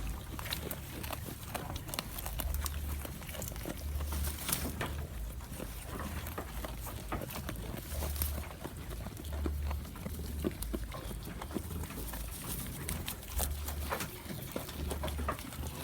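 Goat chewing crunchy food: a dense, irregular run of crisp crunching clicks, with low rumbling gusts of wind on the microphone.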